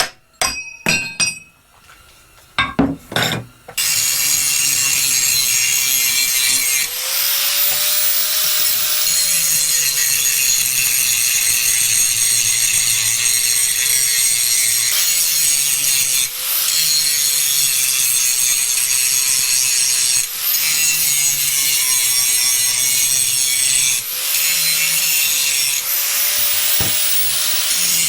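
A few hammer blows on metal, then a power tool cutting through steel plate: a loud, continuous cutting noise whose motor pitch sags and recovers with the load, easing off briefly every few seconds.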